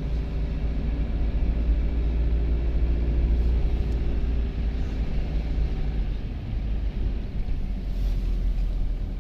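A car driving: steady engine hum over a strong low road rumble.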